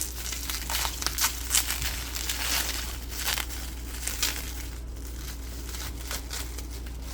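Bubble wrap and packing material being crinkled and pulled apart by hand to unwrap a small figurine: irregular crackling and rustling with sharp clicks scattered throughout.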